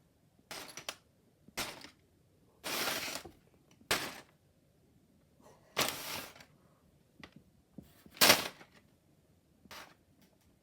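Unboxing handling noise from a Lego set's box and parts: a string of separate short rustles, knocks and clicks with quiet gaps between them. The longest is a rustle about three seconds in, and the loudest is a sharp knock a little past eight seconds.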